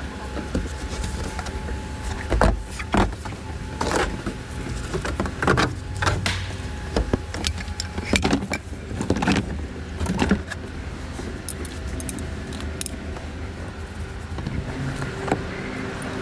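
Irregular clicks, knocks and clatter as the plastic interior trim of a car cabin is handled, over a steady low hum. The knocks come thick at first and thin out in the later part.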